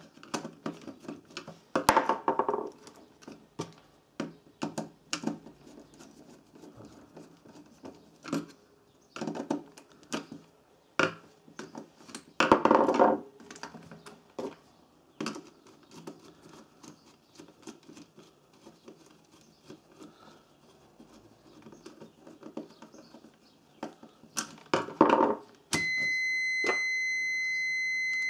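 Sharp clicks and knocks of hands working multimeter test leads and a screwdriver on a thermal overload relay's terminals. Near the end a digital multimeter's continuity beeper sounds one steady high beep as the leads read across the relay's closed contacts.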